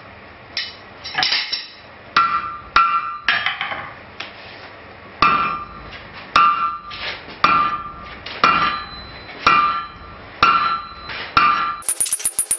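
Hand hammer striking a red-hot steel bar stood on end on an anvil, upsetting it: about a dozen blows, roughly one a second with a short pause partway through, each with a brief metallic anvil ring. Near the end the sound changes to a much faster run of clicks.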